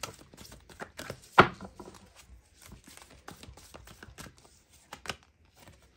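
A tarot deck being shuffled by hand: a run of irregular, soft card clicks and slaps, the loudest about a second and a half in.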